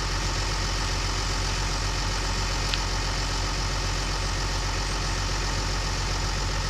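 John Deere 700J crawler dozer's diesel engine idling steadily, with a brief click a little before the middle.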